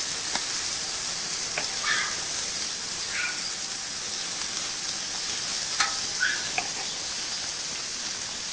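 Tri-tip sizzling on a grill just after basting with an oil-and-vinegar mop, a steady hiss with a few sharp pops and crackles.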